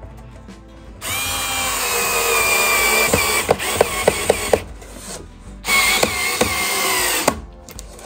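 Cordless electric screwdriver driving screws into wood in two runs, its motor whining and dipping in pitch under load. There are a few sharp clicks near the end of the first, longer run, and the second run is shorter.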